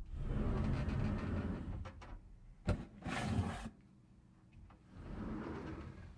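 Household handling noises: a door being opened, a sharp knock about two and a half seconds in followed by a short scraping slide, then softer rustling as a cardboard box is lifted and carried.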